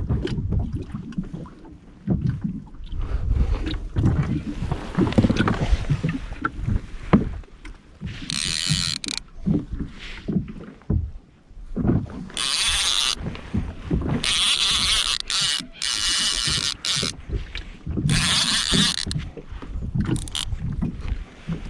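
Handling noise aboard a fishing kayak: irregular low knocks and bumps against the hull, broken by several bursts of hissing water splash lasting a second or two each.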